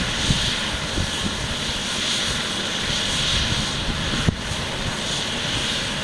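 Eurocopter EC135 air ambulance helicopter running on the ground with its rotor turning: a steady high turbine whine over a rough rotor rumble. A single sharp click comes about four seconds in.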